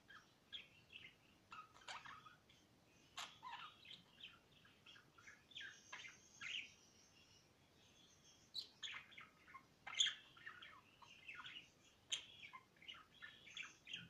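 Pet budgerigars chirping and chattering: a scattered run of short, high chirps and warbles, the loudest about ten seconds in.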